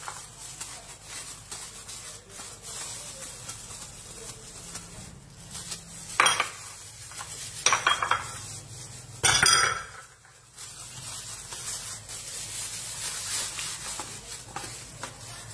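Hands working a raw whole chicken on an aluminium tray, stuffing aromatics into it, with three sharp clatters of metal and crockery about six, eight and nine and a half seconds in.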